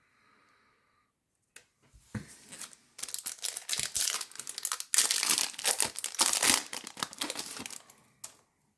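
Foil trading-card pack wrapper being torn open and crinkled, a dense crackling that starts about two seconds in, is loudest in the middle and stops shortly before the end.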